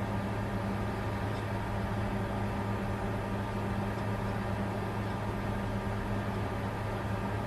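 Bitcoin mining computer running under load: a steady whirring rush with an even low hum beneath it, unchanging throughout.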